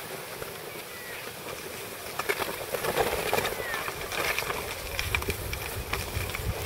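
Skis sliding and scraping over packed snow, with short sharp scrapes getting louder about two seconds in. Wind rumbles on the microphone from about five seconds in.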